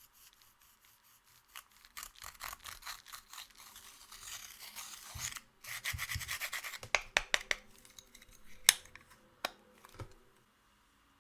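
Slime being mixed and squeezed by hand, with dense sticky crackling and clicking that is thickest through the middle, then a few sharp single pops near the end.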